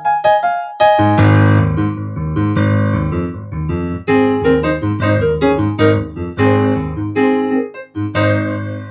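Keyboard piano playing chords over low bass notes, a new chord struck every half second to a second, the last one ringing and fading out near the end.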